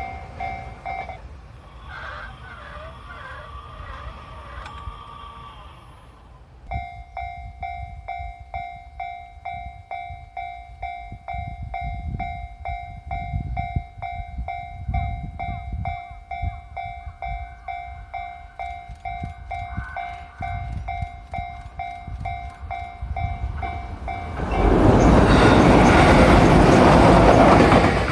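Japanese railway level-crossing warning bell ringing in a fast, even rhythm while a train rumbles past with thumps from the wheels over the rail joints. Early on the bell drops out for a few seconds, leaving a wavering whine. Near the end a loud rush of train noise swamps everything as a train passes close by.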